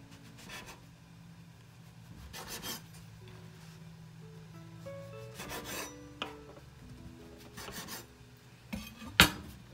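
Kitchen knife sawing through soft bread slices on a wooden cutting board: several sawing strokes a second or two apart, with a sharp knock near the end as the blade strikes the board. Faint background music with held notes runs underneath.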